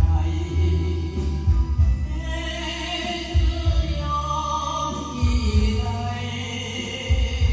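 Music: a song with a singing voice over a backing track, with a low bass note repeating every couple of seconds.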